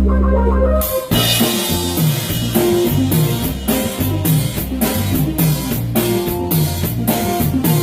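Live band playing during a sound check: a held low chord breaks off about a second in, and drum kit, bass and guitar come in with a steady beat.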